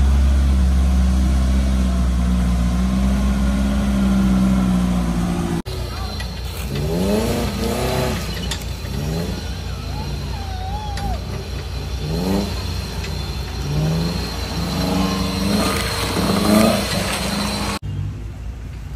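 Off-road 4x4 engines: first a steady low engine drone, then a 4x4 revving up again and again, one rising rev about every second, as it crawls up a steep rutted dirt track. It goes quieter near the end.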